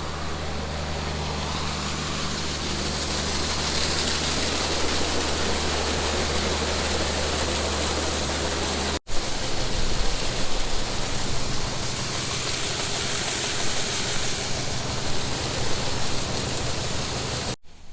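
Machinery running with a steady low hum under a loud rushing noise; after a cut about nine seconds in, a rougher rushing noise with an uneven low rumble.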